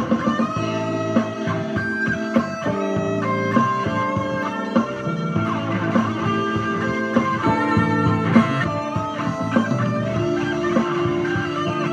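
Les Paul-style electric guitar with humbucker pickups playing an improvised lead in A minor pentatonic, a run of single notes with some bent notes, over a backing track with bass.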